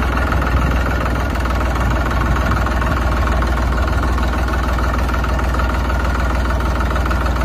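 Tractor engine running steadily: a low, even hum with a steady higher tone over it, unchanging throughout.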